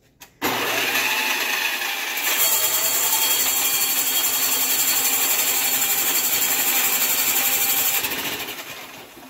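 Drill press running a large hole saw into a round wooden piling: the motor starts about half a second in, the sound grows louder about two seconds in as the saw bites into the wood, and it cuts steadily before the motor is switched off and winds down near the end.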